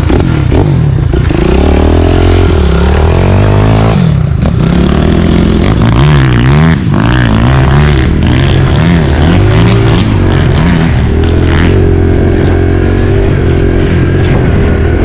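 Dirt bike engine being ridden, the throttle opened and closed so its pitch rises and falls over and over.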